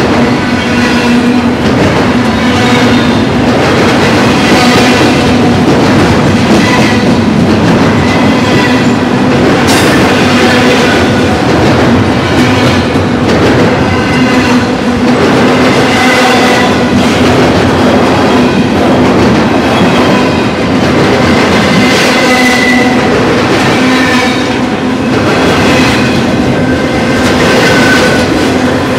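Double-stack intermodal freight cars of a BNSF train rolling past close by: a loud, steady rumble and rattle of steel wheels on rail, with short high wheel squeals coming and going.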